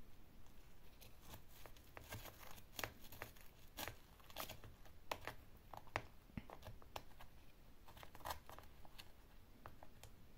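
Thin wooden stick poking and scraping through gritty potting soil, a faint run of irregular scratchy crackles as the substrate is loosened around a Japanese maple seedling's roots to lift it out.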